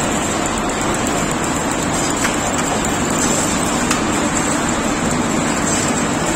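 Wire drawing machine running, pulling steel wire through its die box and winding it onto the turning capstan drum: a steady mechanical noise with a thin high whine over it.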